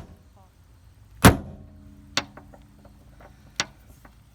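Three sharp metal taps on a Jeep Wrangler's door hinge bolts, struck to loosen them before they are broken free. The loudest comes about a second in and rings briefly; two lighter taps follow.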